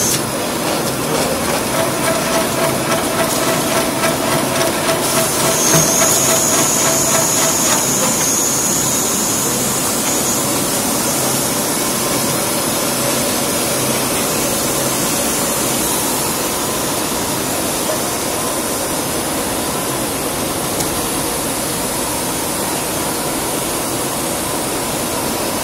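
Automatic cable coiling and wrapping machine running: a steady, hiss-like mechanical noise. For the first several seconds it pulses rhythmically, with a faint whine that fades out.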